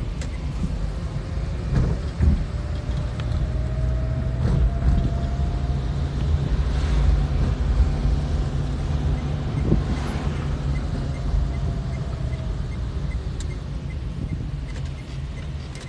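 Engine and road rumble of a moving car heard from inside the cabin, with a faint whine that slowly rises and then falls in pitch, and a few short knocks.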